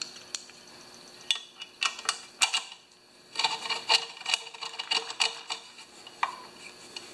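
Screwdriver and small metal engine parts clinking and rattling as they are fitted at a small engine's carburetor: a few separate clicks, then a busier clatter with short metallic rings in the middle of the stretch.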